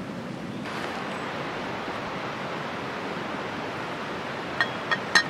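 Water boiling hard in a small aluminium camp pot over campfire coals: a steady rushing hiss. Near the end come three quick, sharp metallic clinks.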